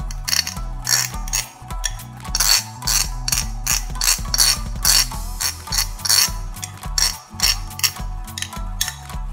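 A metal spoon scraping grated garlic and ginger off a ceramic grater plate, a run of short rasping scrapes over its raised teeth, over background music with a steady bass line.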